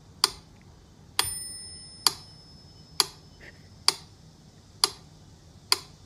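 Sharp, steady ticking about once a second, with a single ringing, bell-like ding about a second in.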